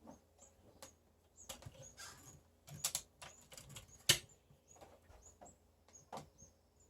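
Faint clicks and knocks of a PCP air rifle being handled and readied to fire, with one sharper knock about four seconds in. Short faint high chirps recur in the background.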